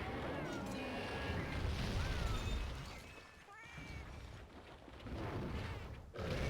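A steady rushing haze of storm and floodwater noise with low rumble, over which short squeaky calls from an animal rise and fall several times; it thins out for a stretch in the middle and cuts off and restarts abruptly near the end.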